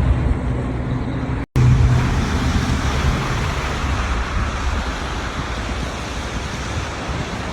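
Steady outdoor street noise with a low rumble, of the kind made by traffic and wind in a snowstorm. It breaks off for an instant about a second and a half in, where one clip cuts to the next.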